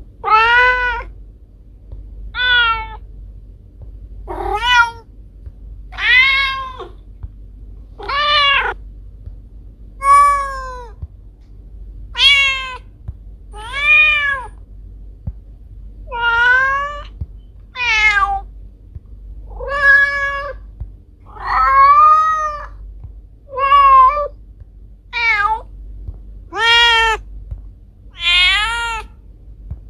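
A cat meowing over and over, about one meow every two seconds, each call rising then falling in pitch, over a steady low hum.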